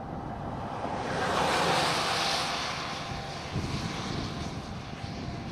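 A car overtaking on a wet highway: the hiss of its tyres on the wet pavement swells over about two seconds and fades, over the steady road noise of the vehicle being driven.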